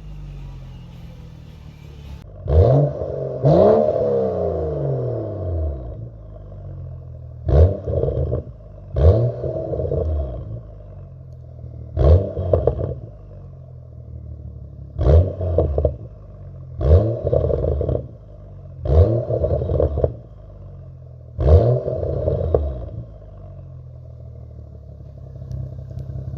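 BMW F10 535i's N55 turbocharged inline-six exhaust, apparently with the muffler and resonator deleted, idling and free-revved in about nine quick throttle blips. Each rev rises sharply and falls back to idle, the first two near the start running longest.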